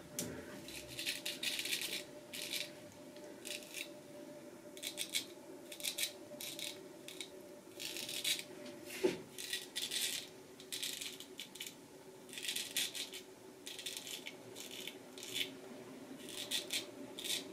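Straight razor, a vintage Nashville Barber Supply Kaeser's No 402, scraping through stubble on lathered skin in many short strokes in quick succession, each one a dry rasp.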